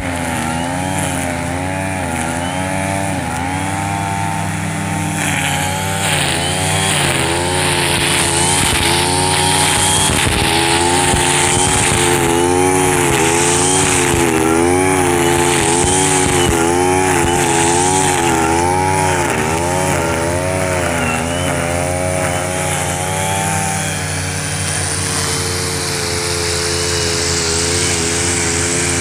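Husqvarna 542RBS 42 cc two-stroke backpack brush cutter spinning square 2.4 mm nylon line through grass, its engine speed rising and sagging about once a second as the line bites, with the crackle of grass being cut. Other brush cutters run on the same slope, and the engine settles to a steady pitch near the end.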